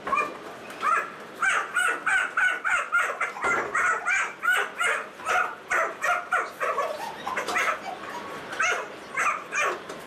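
Rapid, even run of short, high-pitched yelps, about three a second, with no words.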